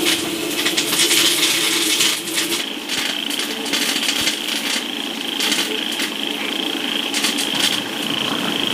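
Cast-iron kettle steaming over a fire with crackling clicks. About two and a half seconds in this gives way to night-time outdoor ambience: a steady high insect trill with scattered clicks.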